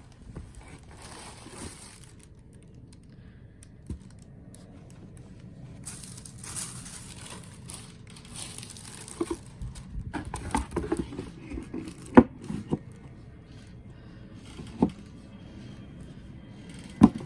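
Paper wrapping rustling and crinkling as a gift box is unwrapped by hand. In the second half come light knocks and clicks of the box and packaging being handled, with a few sharper taps.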